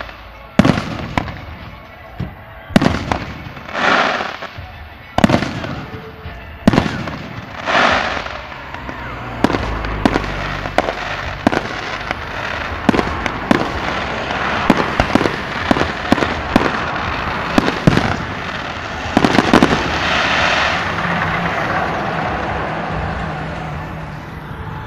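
Fireworks display: aerial shells bursting with sharp bangs about every one to two seconds. From about halfway it turns into a dense barrage of rapid bangs and crackling that peaks a few seconds before the end, then eases off.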